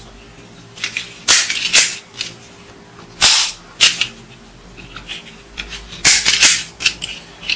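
Plastic toy sniper rifle handled and turned over: a run of sharp plastic clicks, knocks and short scrapes, with louder clusters about a second in, around three to four seconds in, and about six seconds in.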